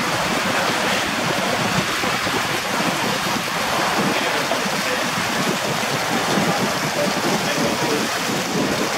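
Steady rushing noise of harbour water and wind at a moored ferry's side, an even hiss with no clear engine note or separate knocks.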